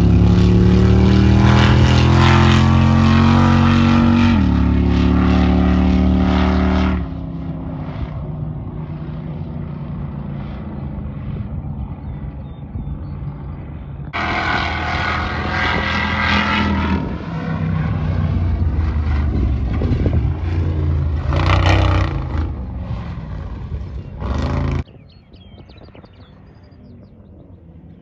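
Off-road race vehicle engines at full throttle on dirt tracks: the engine note climbs, steps down about four seconds in as it shifts, and keeps pulling hard. Loud passes stop and start abruptly several times, and the sound is much quieter near the end.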